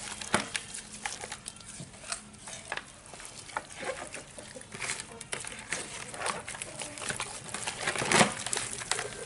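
Hands rubbing and squeezing a raw whole chicken in a plastic basin as seasoning is worked into it: irregular wet squelches and small clicks, with one louder knock near the end.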